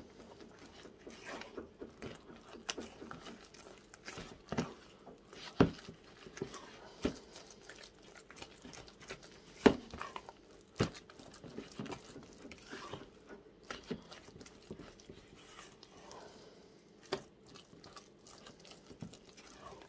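A spatula stirring thick salt cod fritter batter in a plastic mixing bowl: soft wet squelching and scraping, with irregular taps of the spatula against the bowl.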